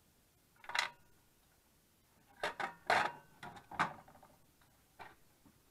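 Small metal carburettor parts and tools clicking and knocking on a workbench as they are handled. There is one click about a second in, a quick run of knocks in the middle and another click near the end.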